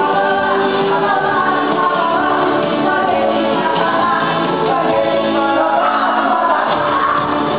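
Live band playing with sung vocals, steady and loud, with reverberation of a large hall.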